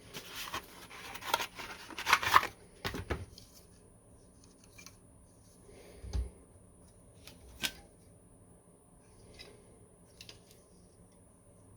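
Computer parts and their packaging being handled: a few seconds of rustling and crinkling, then scattered light clicks and taps, with a dull thud about six seconds in.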